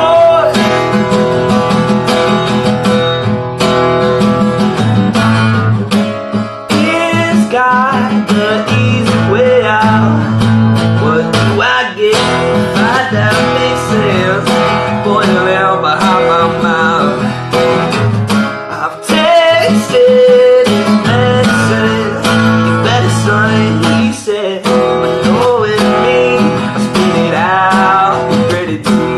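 Acoustic guitar strummed in a steady rhythm, an instrumental passage with a few short breaks between phrases.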